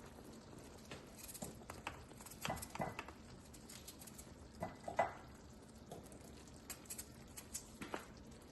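Faint, irregular light taps and clicks, about a dozen of them, the strongest around two and a half seconds in and again near five seconds.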